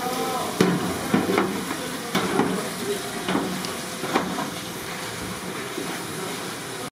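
Handmade fish cakes frying in a vat of hot oil, a steady sizzle, with sharp utensil knocks every half second to a second during the first few seconds as they are scooped out.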